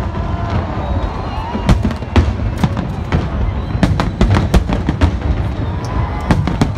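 Aerial fireworks display: shells bursting in quick succession, a dense run of sharp bangs and crackles over a constant low rumble.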